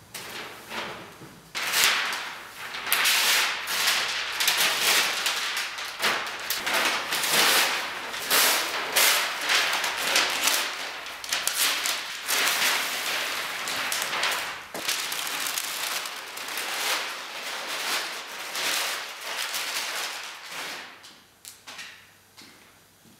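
White paper wrapping being ripped and crumpled off a large framed print: a dense run of tearing and crinkling that tails off near the end.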